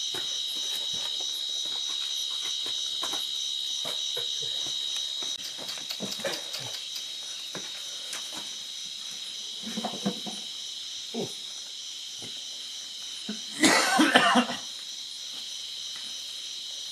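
Night insects, crickets, chirring steadily in a high, even chorus. About three-quarters of the way through, a person makes one loud vocal burst lasting about a second.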